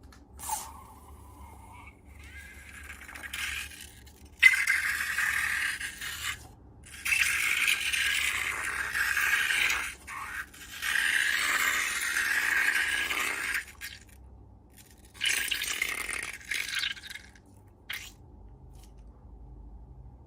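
Slime ingredients being tipped into a container: four spells of rattling and scraping a few seconds each, the first starting with a sharp tap.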